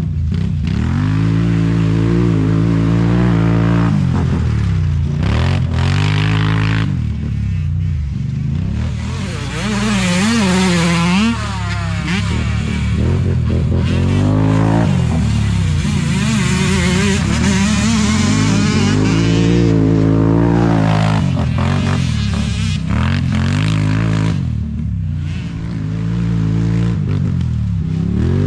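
ATV engine being ridden hard, its pitch climbing and falling repeatedly as the throttle is opened and shut through the turns.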